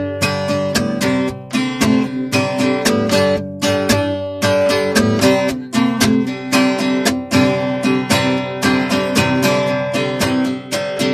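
Acoustic guitar played solo, chords strummed and picked in a steady rhythm, each stroke ringing into the next.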